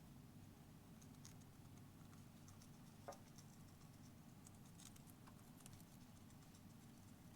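Faint scattered clicks and scratches from a Syrian hamster, with one sharper click about three seconds in, over a low steady hum.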